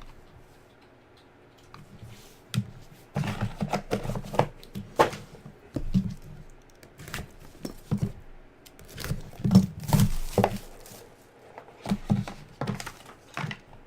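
Trading-card packaging being handled and opened: irregular knocks, rubs and crinkles of cardboard and plastic, starting about two and a half seconds in and busiest near the middle.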